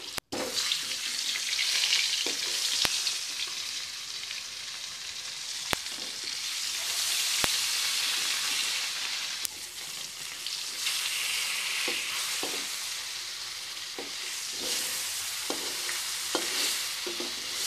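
Katla fish steaks sizzling in hot mustard oil in a pan, a steady frying hiss, with a few light clicks and scrapes of a metal spatula against the pan.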